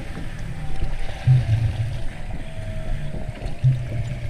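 Water sloshing and lapping against a boat's stern and swim ladder, with wind buffeting the microphone. Low swells come a few times, loudest about a second in and again near the end.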